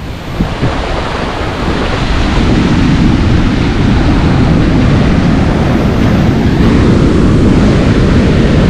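Sea surf washing up the beach, with wind buffeting the microphone. It builds over the first couple of seconds, then holds steady and loud.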